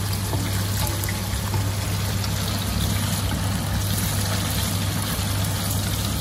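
Tofu deep-frying in hot oil until crisp: a steady sizzle with fine crackles, over a steady low hum.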